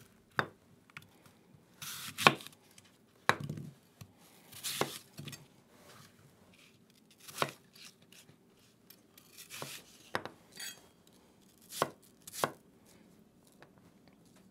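Chef's knife slicing and dicing peeled apples on an end-grain wooden cutting board: about a dozen separate, unhurried cuts, each a short crisp slice ending in a knock of the blade on the wood.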